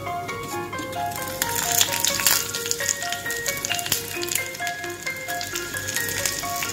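Hot coconut oil sizzling and crackling in a small pan with popped mustard seeds as dried red chillies are dropped in; the sizzle grows louder about a second and a half in. Background music of light bell-like notes plays over it.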